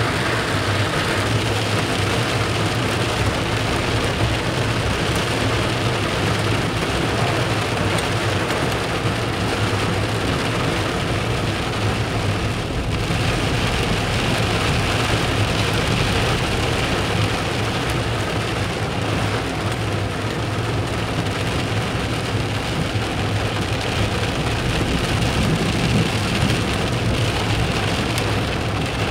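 Heavy rain mixed with hail pelting a car's roof and windshield, heard from inside the cabin as a steady, dense drumming, with the low hum of the moving car underneath.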